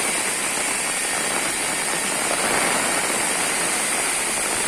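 Heavy rain and rushing water: a steady, even hiss of falling water.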